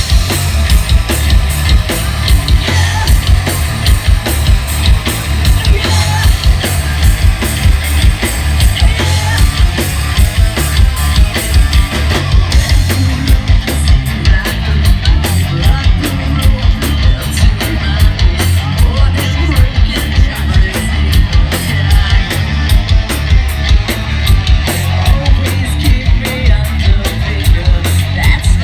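Hard rock band playing live at full volume, with a driving drum kit beat under heavy amplified instruments.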